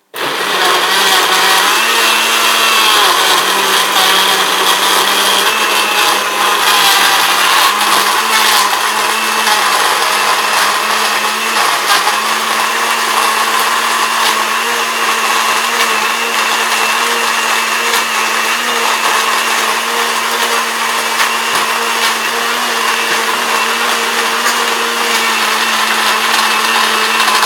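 Countertop blender switched on, its motor running steadily as it crushes ice cubes and frozen strawberries in a yogurt and apricot-juice smoothie. The clatter of ice hitting the blades is densest over the first several seconds and thins out as the mix turns smooth, and the motor stops abruptly at the end.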